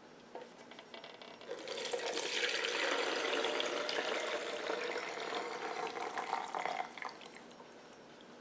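Birria cooking liquid and chicken pieces poured from a stainless steel pressure-cooker pot through a perforated strainer into a plastic gravy separator jug. The splashing pour starts about one and a half seconds in, its note rises a little as the jug fills, and it tapers off near the end.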